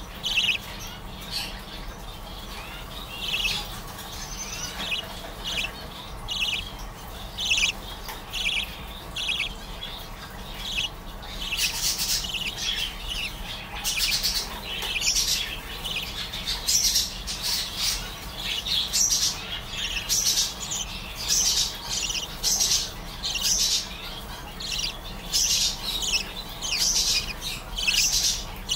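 Budgerigar chick calling in short, repeated chirps and squawks, the calls coming thicker and faster from about halfway through.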